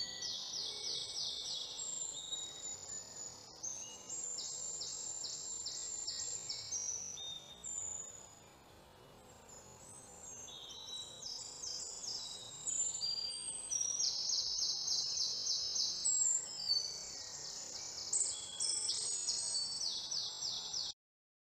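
Outdoor bird chorus: several birds singing overlapping high, rapid trills and chirps, quieter for a moment about eight seconds in. It cuts off suddenly near the end.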